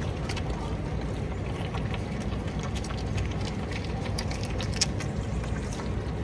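Capybaras chewing and crunching raw vegetables such as carrot strips and purple cabbage, a run of irregular crisp clicks, over a steady low rumble.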